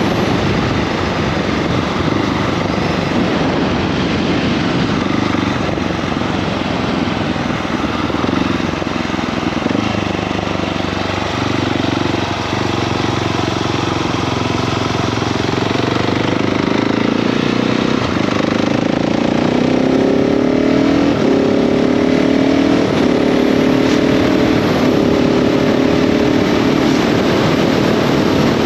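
KTM 690 SMC R single-cylinder engine riding along, with wind rushing over the microphone. In the second half it accelerates through the gears: the pitch rises and drops back at several quick upshifts.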